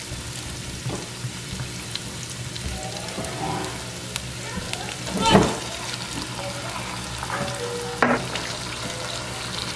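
Shredded chicken and minced garlic sizzling in oil in a frying pan as barbecue sauce is poured over them. A brief louder sound about five seconds in and a sharp click about eight seconds in.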